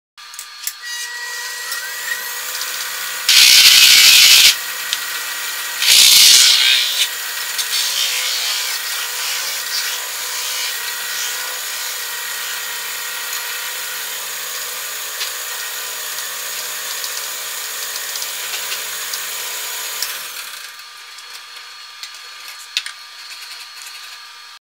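Metal spinning on an Oliver No. 20 lathe: a hand-held spinning tool rubs and scrapes against a thin brass blank turning on a wooden form, over the lathe's steady whine. There are two loud, harsh bursts of scraping about three and six seconds in, and the sound drops to a quieter hum a few seconds before the end.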